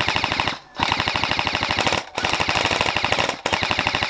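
An airsoft rifle firing on full auto, close by: several long bursts of rapid, evenly spaced shots, each about a second long, broken by short pauses.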